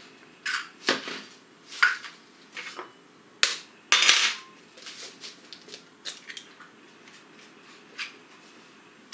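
Chicken eggs being cracked on the rim of a plastic mixing bowl and the shells pulled apart: a series of sharp taps and clicks, the loudest about three and a half to four seconds in, then fainter ones.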